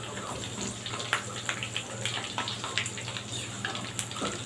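Chicken pieces and lemongrass stalks deep-frying in hot oil in a wok: a steady sizzle broken by many irregular crackles and pops.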